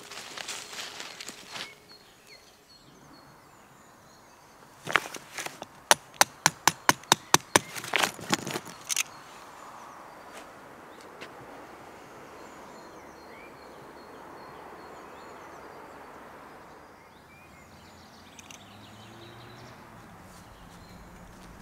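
Forest ambience with faint insects, broken about five seconds in by a quick run of about a dozen sharp clicks or knocks, some four or five a second, lasting about four seconds.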